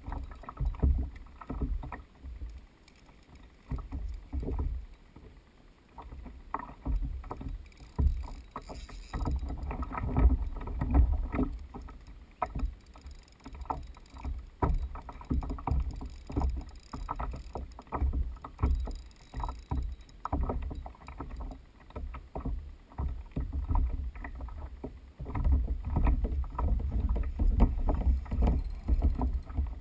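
Sounds of a kayak on the water: many irregular knocks and low thumps against the hull, over an uneven low rumble.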